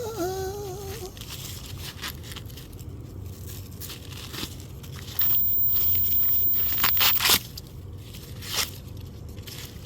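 Husks being torn and pulled off a freshly picked ear of sweet corn by hand: a run of crisp rips and rustles, with a louder stretch of ripping from about five to seven seconds in.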